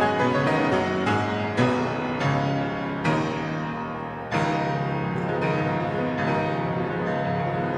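Piano playing a service prelude: a steady run of struck, sustained notes.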